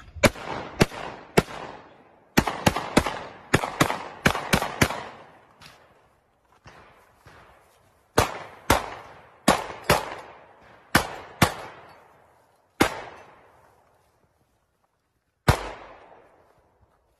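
A string of about twenty gunshots, each a sharp report trailing off in a short echo. A fast run of shotgun shots at thrown clay targets comes first. After a pause of a second or two, further shots follow in uneven pairs and singles, thinning out toward the end.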